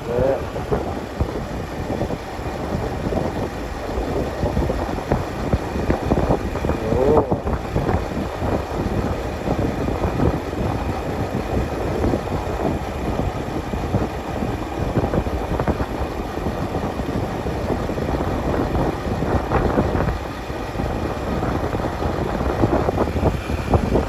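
Honda Super Cub 90's small single-cylinder four-stroke engine running steadily while the motorbike rides along, with wind buffeting the microphone over it.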